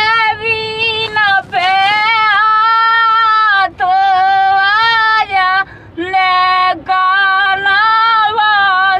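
A man singing a rasiya folk song unaccompanied in a high voice that sounds like a woman's, holding long notes with short breaks for breath.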